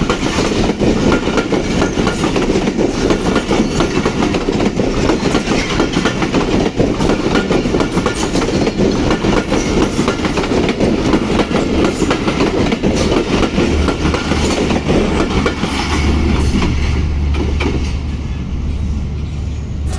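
Passenger train passing at speed close by: a continuous rumble with rapid wheel clatter over the rail joints. Near the end the clatter thins out, leaving a low hum.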